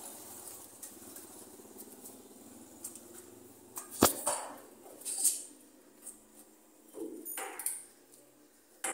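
Wooden kitchen cabinet door being swung open and shut: a sharp knock about four seconds in, then a few softer knocks and rattles.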